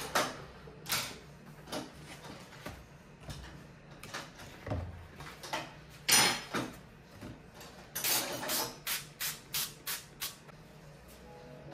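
Paper towels rustling as they are handled, then a trigger spray bottle of multipurpose cleaner spritzed onto a paper towel, about half a dozen short sprays in quick succession near the end.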